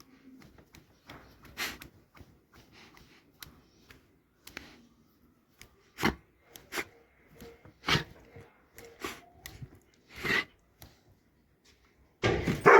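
Scattered rubbing and scraping with a few sharp knocks, then a Doberman starts barking loudly near the end.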